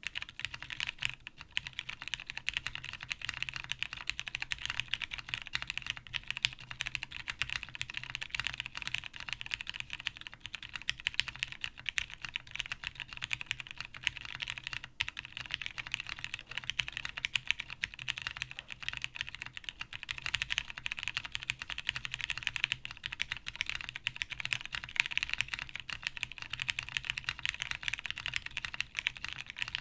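Continuous fast typing on a TGR Jane V2 CE custom mechanical keyboard with lubed Cherry Hyperglide Brown tactile switches, O-ring mounted on an FR4 half plate: a dense, uneven stream of keystroke clacks that starts suddenly.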